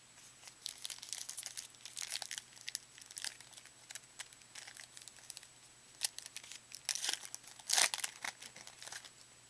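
Crinkling and tearing of a trading-card pack's wrapper being handled and opened, in irregular crackles with the loudest burst near the end.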